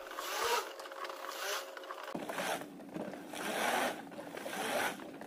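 Handheld stick blender churning liquid cold-process soap batter in a plastic jug: about five rushing surges roughly a second apart as it is run in very short pulses, with a steady motor hum from about two seconds in. The batter is still thin and fluid, at the start of blending toward emulsion.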